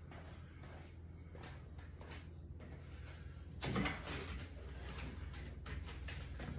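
A steady low hum, then from about three and a half seconds in, rustling and knocking as packing material is handled inside a plywood shipping crate.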